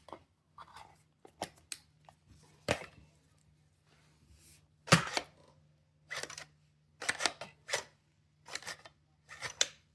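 A series of sharp metallic clacks from the Sol Invictus Tac 9 pistol's blowback action being worked by hand, the side charging handle pulled back and the bolt slamming forward, loudest about halfway. With an empty Glock 17 magazine in, the bolt goes home each time instead of locking back.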